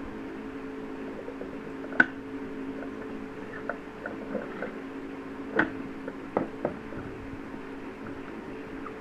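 Java macaque rummaging through seeds in a small wooden box: scattered light clicks and rustles, with a sharp knock about two seconds in and three more between five and a half and seven seconds. A steady low hum runs underneath.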